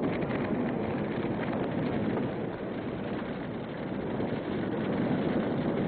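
Steady rush of sea water and wind around a submarine running on the surface through waves, starting abruptly as the soundtrack cuts in.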